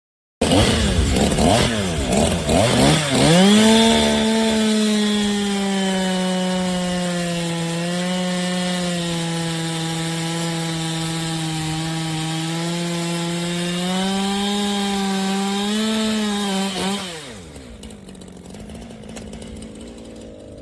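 Chainsaw cutting wood. It comes in suddenly and revs unevenly for about three seconds, then runs steadily under load while its pitch sags and recovers a little. About 17 seconds in it drops to a much quieter hum.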